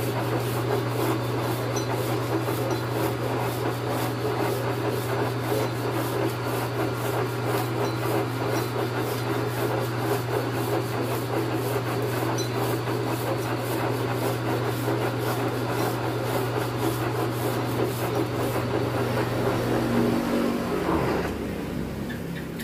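Metal lathe spinning a crankshaft while an abrasive strip of sandpaper is pulled around a journal to polish it: a steady rubbing rasp over the lathe motor's hum. The motor hum stops near the end and the rubbing fades as the lathe runs down.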